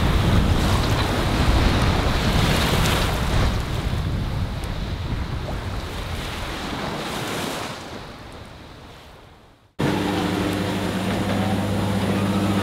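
Wind buffeting the microphone over the rush of waves along a sailing yacht's hull in a force 5–6 breeze, fading away. Then, after an abrupt cut near the end, the steady low hum of the boat's watermaker running.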